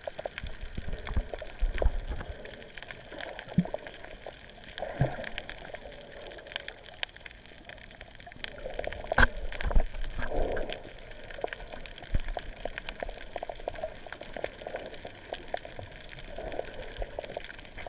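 Underwater sound picked up by a camera held beneath the surface while snorkelling: muffled sloshing and gurgling of water with scattered clicks, and one sharper knock about nine seconds in.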